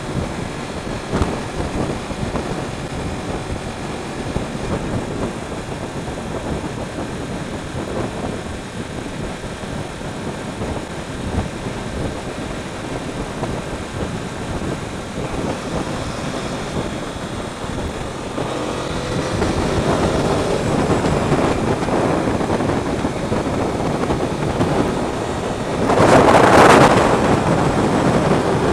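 Sportbike riding at highway speed: a steady rush of wind and road noise over the on-bike camera, with the 2015 Yamaha YZF-R1's inline-four engine underneath. The noise grows louder about two-thirds of the way through, with a louder rush near the end as the bike draws alongside a semi-trailer truck.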